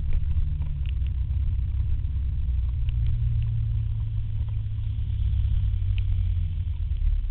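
Steady low rumble of a scooter in motion on a wet road, from its engine and wind on the microphone, with a few faint ticks.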